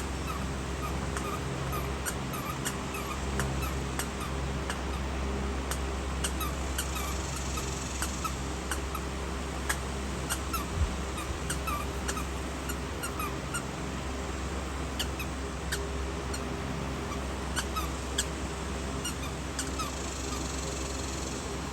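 Chihuahua puppies making small, short squeaks and whimpers over and over, with scattered light ticks and a steady low hum underneath.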